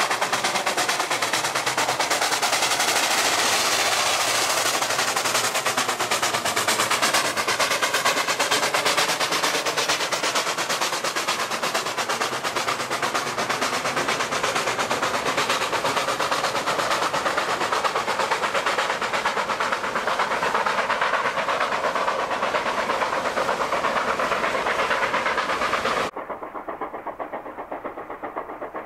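Coal-fired steam locomotive working hard, with rapid exhaust chuffs running together into a loud continuous hiss and rumble. Near the end it drops suddenly to a much quieter, more distant running sound.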